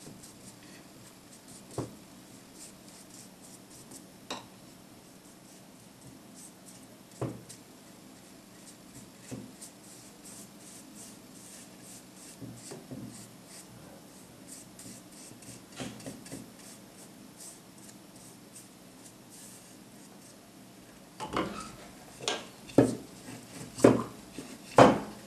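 Paintbrush bristles stroking wood stain onto bare wood, a soft repeated brushing with a few light knocks. Near the end there is a run of louder wooden knocks as the wooden workpiece is picked up and handled.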